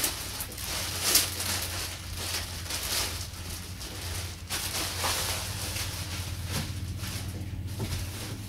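Clear plastic bag crinkling and rustling irregularly as a motorcycle windshield is pulled out of it, over a steady low hum.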